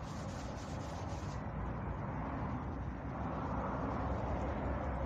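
Steady hand rubbing on the Peugeot 203's freshly painted front wing, back-and-forth strokes with a pad to take out a paint run, heard over a continuous low rumble.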